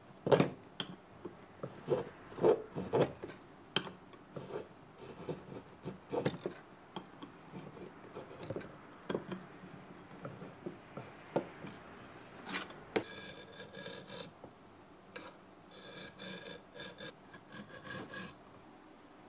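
Hand chisel paring and scraping oak inside the blade opening of a Japanese plane block: a run of short, irregular scraping strokes, sharpest in the first few seconds. From about halfway on the scraping turns thinner and more even, with a faint ringing edge.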